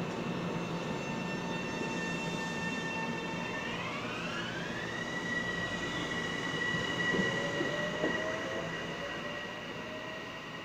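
Metro-North M7A electric multiple-unit train accelerating away from a platform: the high whine of its traction motors and inverters steps up in pitch about four seconds in, with a couple of sharp wheel clicks around seven and eight seconds, growing fainter near the end as it pulls away.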